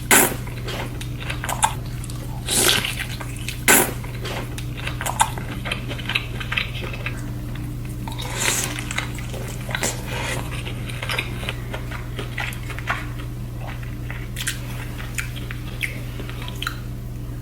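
Close-up eating sounds of seafood: wet chewing, smacking and squishing with irregular clicks and crackles, louder ones near the start and around a quarter and half way through, over a steady low hum.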